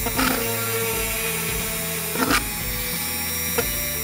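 Dremel rotary tool with a side-cutting bit running at high speed as it cuts through a plastic seat back, with three short louder rasps as the bit bites. Background music plays underneath.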